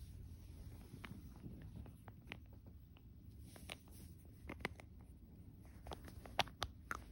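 Handling noise of a phone held against clothing and a fuzzy blanket: soft rubbing with scattered light clicks and taps, which come more often in the second half.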